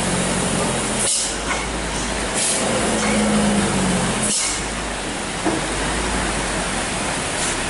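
Hino 500 box truck's diesel engine pulling the truck slowly up a steep, wet hairpin, over a steady hiss of rain and wet road. Several short air hisses come at intervals, about a second in, at two and a half seconds, at four and a half seconds and near the end.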